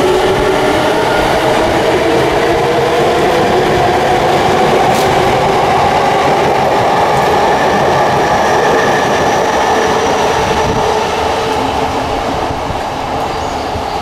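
Yamanote Line electric commuter train pulling out of the station: a steady whine from the traction motors over loud wheel-and-rail running noise, fading a little near the end as it moves off.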